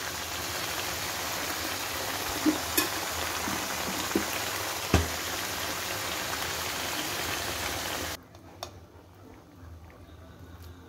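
Spinach and chicken frying in a pan: a steady sizzling hiss with a few light knocks against the pan. The sizzle cuts off abruptly about eight seconds in, leaving only faint clinks.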